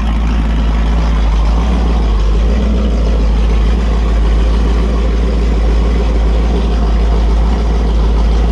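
Holden 355 stroker V8 running steadily on an engine test stand through short open headers, on its first run after fire-up while the new flat-tappet cam and lifters are bedded in.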